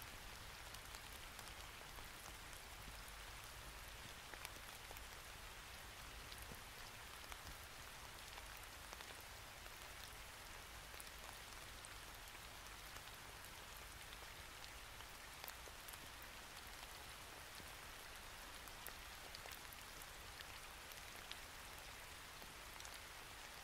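Faint, steady rain ambience: a soft hiss of rainfall with scattered light drop ticks.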